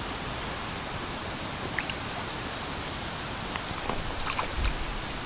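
Steady outdoor hiss of wind and lake water at the bank, with a few short ticks and splashes about two seconds in and again around four seconds in, while a hooked fish is played close in on a float rod.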